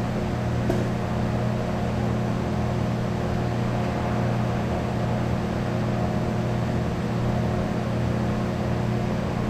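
Steady, unchanging hum of running machinery with several held tones, and one short click less than a second in.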